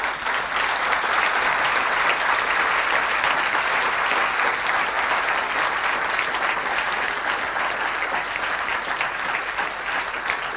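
Audience applauding: dense, steady clapping from a full hall that eases a little toward the end.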